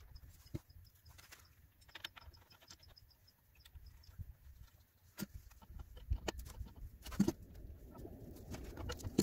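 Scattered faint clicks and knocks of parts being handled as a frost-free yard hydrant is put back together, with a quick run of faint high chirps about two seconds in.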